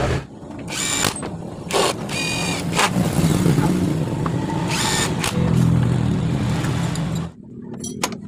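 Hard plastic clicks and scrapes as the air duct on a Yamaha Mio Smile's CVT cover is pressed and fitted into place. An engine's steady low hum runs underneath and cuts off abruptly about seven seconds in.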